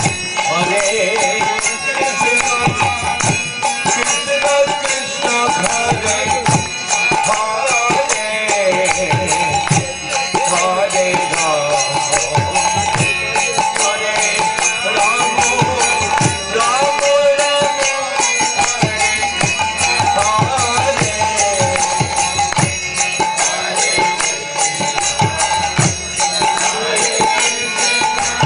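Devotional kirtan music: a harmonium and several mridanga drums played together, with voices chanting over them, loud and unbroken.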